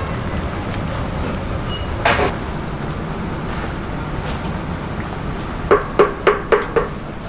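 A huge cauldron of chueotang (loach soup) boiling hard, a steady rushing bubble. A wooden stirring paddle knocks against the pot once about two seconds in, then five quick knocks near the end.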